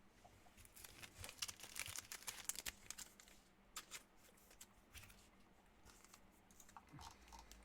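Faint, irregular light clicks and rustles of hands working at a desk, thickest in the first three seconds and sparser after.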